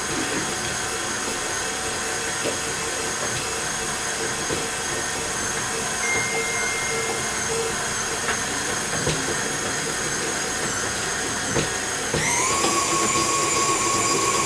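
Electric stand mixer motor running steadily as it mixes bread dough: a steady whine over a hiss. About twelve seconds in, the mixer is switched to a higher speed, and the whine steps up in pitch and gets a little louder.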